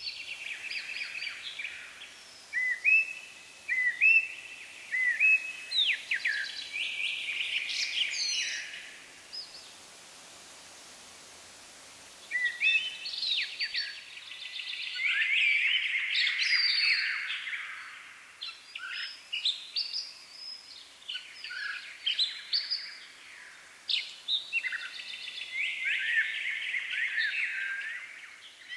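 Songbirds singing, with many short chirps and trills overlapping and a lull of about two seconds near the middle, over a faint steady hiss.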